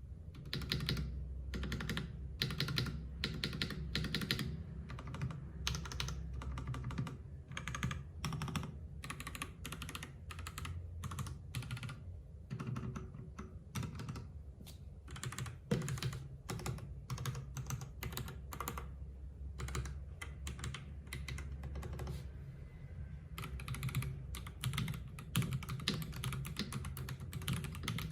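Typing on a Fuhlen H95s gasket-mount mechanical keyboard with Fuhlen Yellow switches and PBT keycaps: rapid, continuous keystrokes, with a short lull about 22 seconds in.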